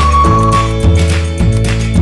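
Cheerful background music with a steady beat and a bass line, and a high held melody note through the first half second or so.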